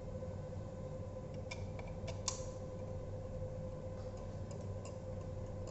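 A few small clicks and taps of hands fitting a cable and a part into a slot under a frame tube, the sharpest about two seconds in, over a steady hum.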